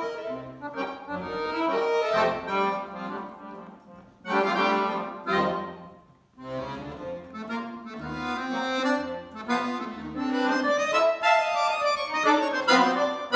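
Two accordions playing a contemporary classical duet in sustained, dense chords. The music breaks off sharply twice, about four and six seconds in, then builds to louder, fuller chords near the end.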